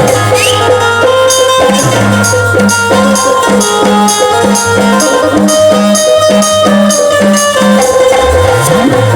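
Instrumental music with no singing: a steady beat of bright jingle strokes over a repeating bass note and held melody lines.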